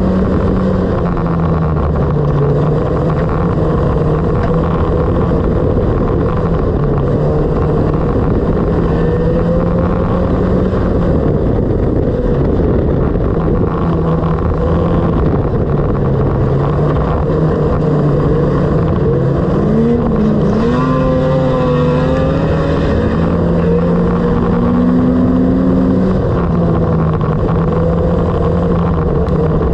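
Stripped-out dirt-oval race car's engine running hard, heard from inside the bare cabin, its note rising and falling as the driver works the throttle, over a rumble of tyres and chassis noise on the dirt track. From about twenty seconds in a second, higher engine note wavers over it for several seconds.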